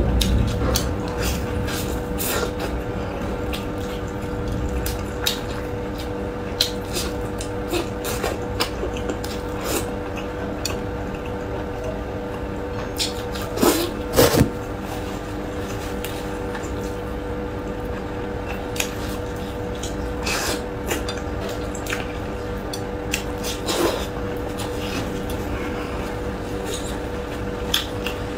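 Close-up wet eating sounds of someone chewing soft, saucy braised meat: scattered sharp clicks and smacks, with a louder cluster a little before halfway. A steady low hum runs underneath.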